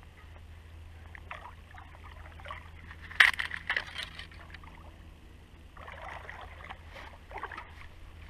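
Hooked wels catfish thrashing at the water's surface: a sudden loud splash about three seconds in, then more splashing a couple of seconds later.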